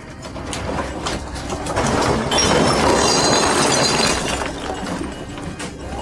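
A room shaking in an earthquake: a heavy rattling rumble full of clinking and clattering objects, growing loudest in the middle and easing off toward the end.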